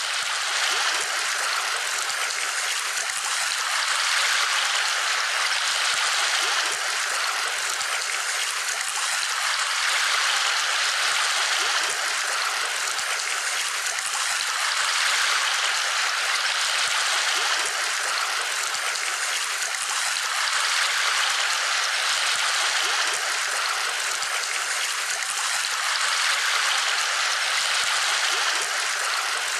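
Steady rush of running water, swelling a little every few seconds.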